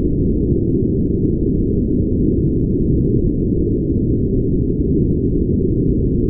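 Steady brown noise: a deep, even rush with no high hiss at all, holding the same level throughout.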